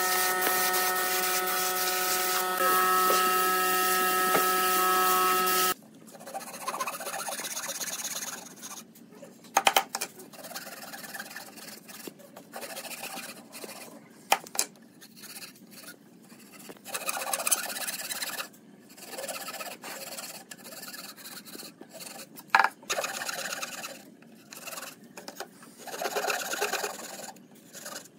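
A paint spray gun hissing over a steady motor hum, cut off abruptly about six seconds in. Then a handsaw cutting pine in short, uneven runs of rasping strokes, with pauses between cuts and a few sharp knocks.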